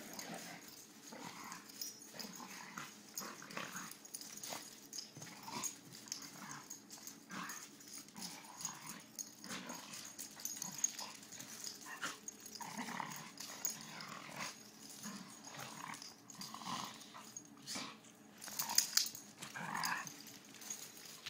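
Two dogs play-wrestling, making short, irregular growls and huffs, with a louder burst of sharp scuffling noises near the end.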